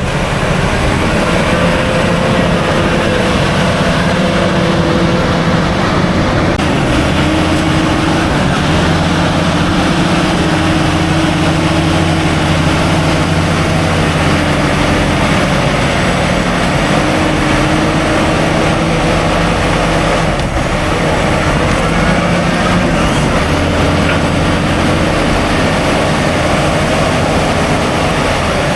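Diesel engine of a heavy earthmoving machine running loud and steady while working, its pitch shifting a little up and down with the load.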